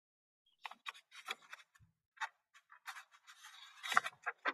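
Handling noise close to a computer microphone: irregular clicks and scratchy rustles, then a rubbing stretch that ends in the loudest knock about four seconds in.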